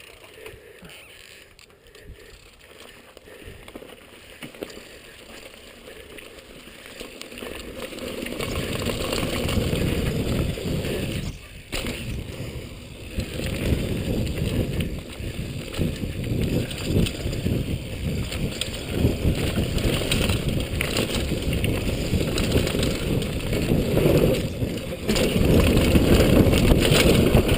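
Mountain bike rolling fast down a dirt downhill trail: tyre noise, rattling chatter over rough ground and the rush of air, quiet at first and building up from about eight seconds in as speed picks up, with a brief lull about eleven seconds in.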